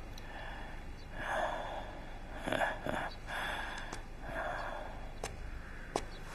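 Slow, audible breathing: four soft breaths about a second and a half apart, with a few faint clicks between them.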